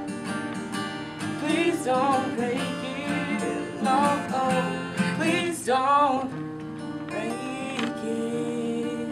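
A voice singing over a strummed acoustic guitar.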